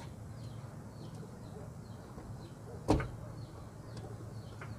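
A single sharp plastic click about three seconds in as an LED headlight bulb is worked into the back of a headlight housing, with a smaller click near the end. A low steady hum and faint bird chirps sit underneath.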